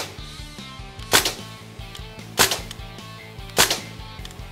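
Crosman DPMS SBR CO2 blowback BB rifle fired in semi-auto: three sharp shots, evenly spaced about a second and a quarter apart, over steady background music.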